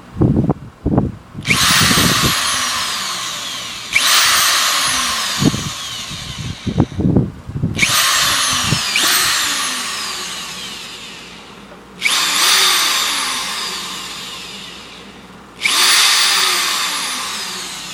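Power drill run in about six short bursts, each starting suddenly and winding down with a falling whine. Low knocks from handling come between the first few bursts.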